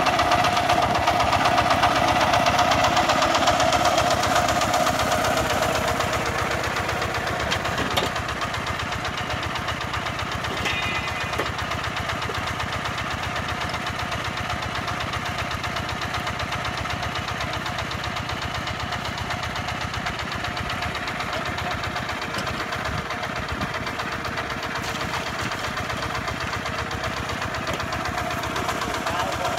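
Kubota RT140 single-cylinder diesel engine of a two-wheel walking tractor running steadily. It is louder for the first five seconds, then a little quieter. A single sharp knock comes about eight seconds in.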